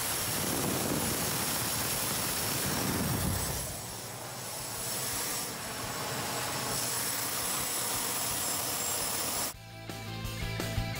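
Small DIY gas turbine jet engine running: a steady rushing roar with a thin high-pitched whine over it, dipping a little about four seconds in. About nine and a half seconds in it cuts off abruptly to background guitar music.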